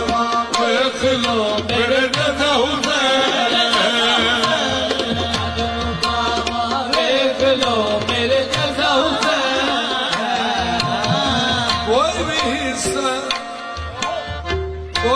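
Qawwali music: tabla drumming under a steady harmonium drone, with a sliding, ornamented vocal line sung without clear words.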